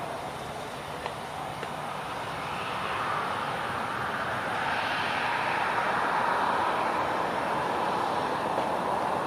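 Jet airliner's engines, a steady rushing roar that swells from about three seconds in and stays loud.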